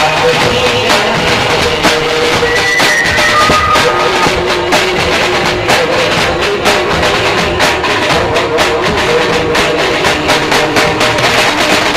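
Indian street band playing: a large bass drum and a snare drum beat a steady, dense rhythm under a melody of held notes that step from pitch to pitch.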